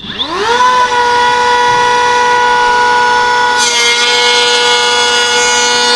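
Voto 21V cordless planer with a brushless motor spinning up with a rising whine that settles into a steady high whine within about a second. About three and a half seconds in, a harsher hissing noise joins as the blades start cutting into an oak board.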